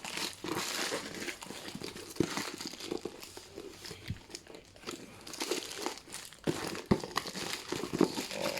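Packaging crinkling and rustling as a parcel is opened and handled, with a few sharp clicks among the rustle.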